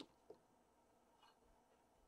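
Near silence: quiet room tone, with two faint brief taps.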